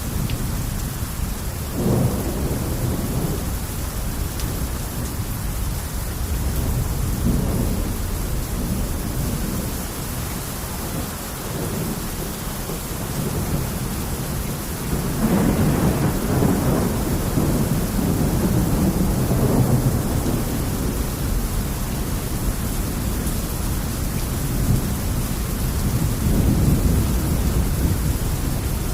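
Rain falling steadily, under a low rumble that swells about two seconds in, again for several seconds around the middle, and once more near the end.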